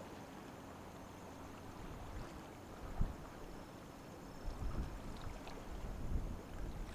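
Outdoor ambience of low rumble with wind gusts buffeting the microphone: one sharp bump about three seconds in, then heavier, uneven buffeting from about halfway through. A faint steady high tone sits in the background.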